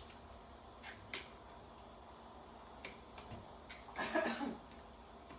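Knife slicing raw cuttlefish on a wooden cutting board: a few light sharp taps and soft wet squishing, with a louder, longer handling noise about four seconds in.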